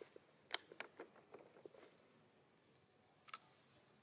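Faint crunching and small clicks of macaques chewing pieces of fruit, a quick irregular run in the first two seconds and a sharper double click a little after three seconds.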